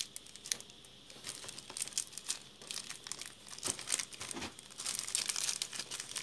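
Clear plastic packaging crinkling and rustling in irregular crackles as wrapped items are handled, sparse at first and busier over the last second or so.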